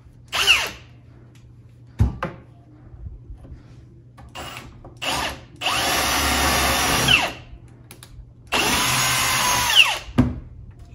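A heavier-duty power drill bores a large bit through a cabinet panel. It runs in a few short bursts, then in two longer steady runs of about a second and a half each, and the whine falls off at the end of each run. There is a single knock about two seconds in.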